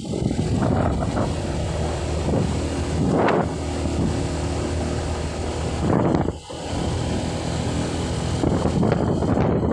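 A vehicle engine running steadily, with wind buffeting the microphone in gusts.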